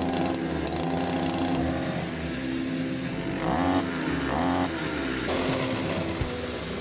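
Small two-stroke brush cutter engine running, with its speed rising and falling around the middle.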